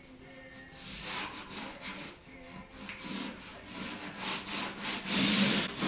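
Hand float scraped back and forth over a dimpled plastic uncoupling membrane, pressing it down into the thinset beneath: a series of rough rubbing strokes that grow louder toward the end.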